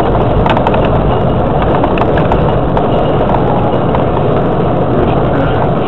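Loud, steady road and engine rumble of a moving car, heard from inside the cabin through a dashcam's microphone, with scattered light clicks and rattles.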